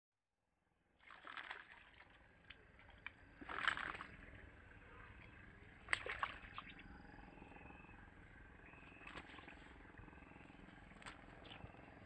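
Faint outdoor background with several short rustles and sharp knocks, the loudest about three and a half seconds in and a sharp click near six seconds.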